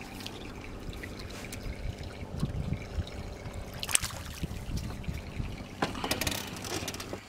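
A small piau fish released over the side of an aluminium boat into the river, with water trickling and a sharp splash about four seconds in as it goes back in, then more splashing around six seconds in.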